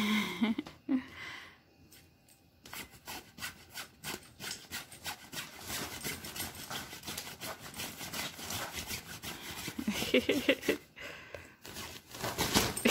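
A fabric pop-up cat tunnel rustling and scratching as a cat crawls and paws about inside it, a rapid run of scratchy rustles lasting several seconds. A short vocal sound comes about ten seconds in.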